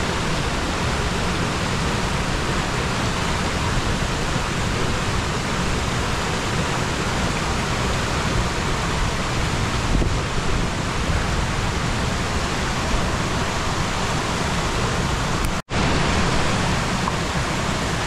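Steady rushing roar of a waterfall and its cascades pouring over rock ledges, breaking off for an instant near the end.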